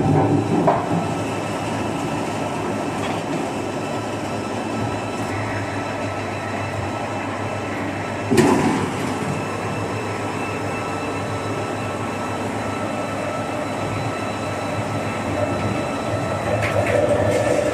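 Veneer peeling line running: the log lathe, its motors and conveyors give a steady mechanical drone with a low rumble and a few fixed whining tones. A single sharp knock comes about eight seconds in, and clicking grows busier near the end.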